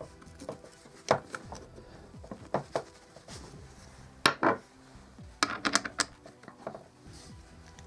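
Irregular metal clinks, taps and light rubbing from hands working on an angle grinder's protective guard and spindle flange, with a screwdriver picked up off a wooden table. The clicks come in small clusters about a second in, near the middle and again a little past halfway.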